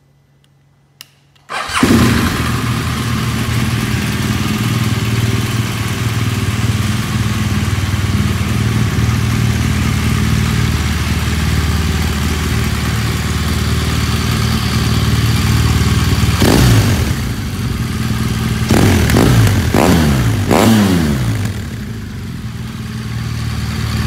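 BMW R1200 GS LC boxer twin with an aftermarket SC-Project silencer, started after a short click about a second and a half in, then idling steadily. From about sixteen seconds in it is blipped several times, the revs jumping and falling back to idle.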